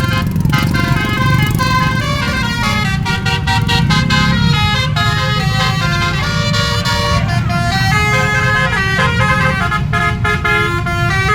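Bus 'telolet' multi-tone musical horn playing a tune, several notes sounding together and changing pitch every half second or so, over the low rumble of the bus engine.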